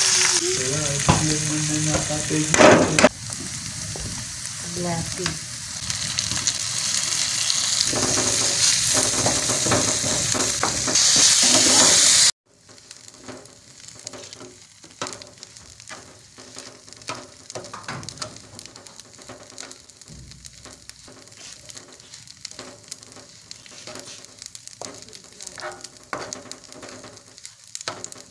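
Semolina and seeds sizzling as they fry in hot oil in a pan while being stirred. About twelve seconds in, the sizzle cuts off abruptly. The rest is quieter scraping and clicking of a spatula stirring a dry-roasted seed mixture in a steel pan.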